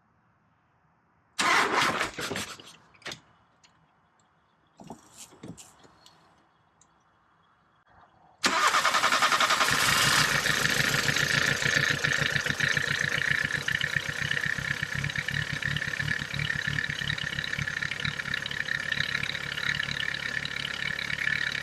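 A few knocks and clatter, then the Mk3 Volkswagen Golf Variant's engine is cranked for about a second and a half and catches, settling into a steady idle.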